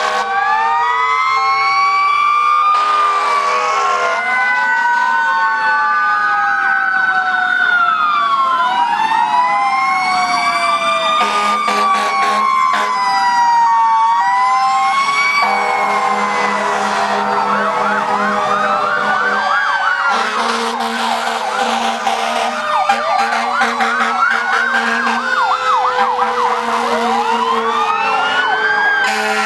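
Several fire truck sirens wailing at once, their pitches rising and falling out of step with each other. In the second half, quicker, shorter sweeps join the slow wails.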